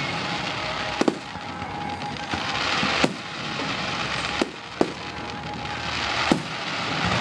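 Fireworks display: aerial shells bursting with five sharp bangs at uneven intervals, over a steady background of noise.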